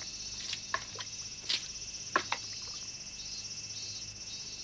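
Summer cicadas droning steadily at a high pitch, with a handful of short sharp sounds over it.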